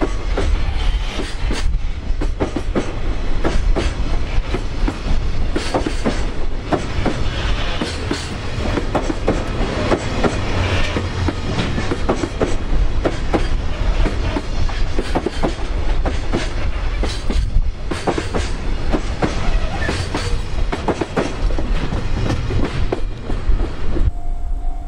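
Long freight train passing at speed: a steady rumble with rapid clicking of the wagons' wheels over rail joints, and strong wind buffeting the microphone. The sound cuts off abruptly near the end.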